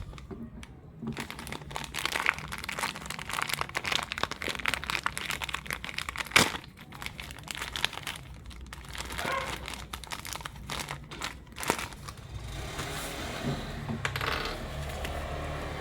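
Plastic packaging crinkling and rustling as it is handled and opened, with scattered clicks and a sharper snap about six seconds in.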